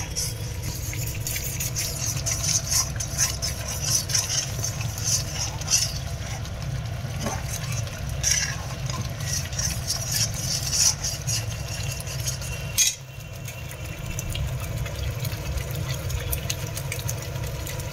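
A long steel ladle stirring and scraping through a masala in a kadhai, with irregular metal scrapes and clinks over the hiss of the bubbling, sizzling masala. A steady low hum runs underneath.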